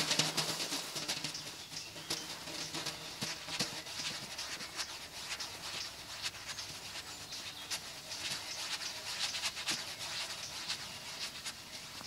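Dry rustling and crackling of a mass of garter snakes crawling over one another, across dry leaves and gravel. It is a dense, irregular patter of small clicks, busiest at the start.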